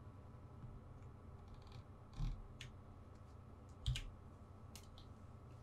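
A few faint, scattered clicks of computer input at a desk, two of them with a dull low thump, over a faint steady hum.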